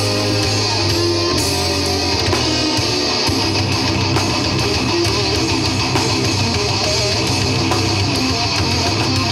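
Heavy metal band playing live, led by strummed electric guitar, loud and without a break.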